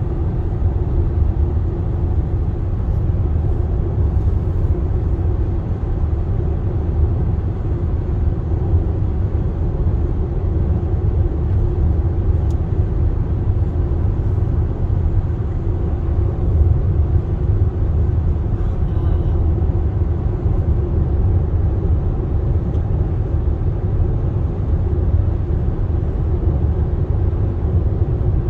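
Steady low road rumble heard inside the cabin of a 2023 Hyundai Palisade cruising at highway speed.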